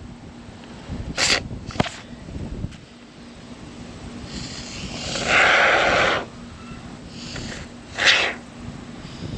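Can of spray foam sealant dispensing in hissing spurts: two short spurts about a second and two seconds in, a longer one of about two seconds in the middle, and another short spurt near the end.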